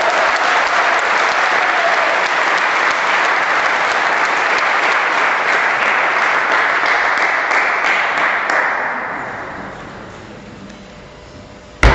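Spectators in a sports hall applauding steadily after a table-tennis point, the clapping dying away over the last few seconds. A single sharp knock comes near the end.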